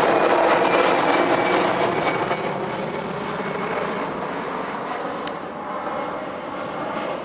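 Jet engines of an Airbus A320-family airliner at climb thrust just after takeoff, a steady rushing roar that fades gradually as the aircraft climbs away.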